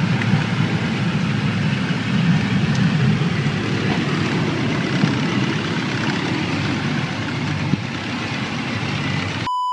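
Steady rushing drone of airflow and engine inside the cabin of a Beech V35 Bonanza light plane that has lost power and is making an emergency landing. Near the end a short high beep cuts in, with all other sound dropped out.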